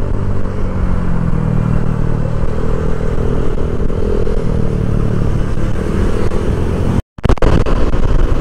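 Honda Click 150i scooter riding at road speed: a steady engine drone under a heavy wind rumble on the microphone. The sound cuts out completely for a moment about seven seconds in, then comes back the same.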